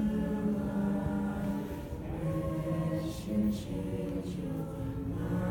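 A choir singing a slow folk song, voices only, with long held notes that move from one to the next.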